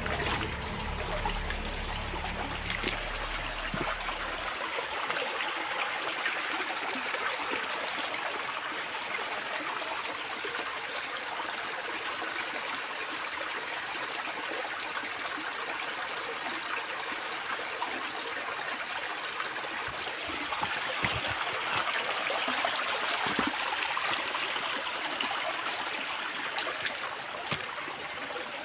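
Shallow rocky forest creek running and trickling over stones: a steady, even rush of water. A low hum underneath stops about four seconds in.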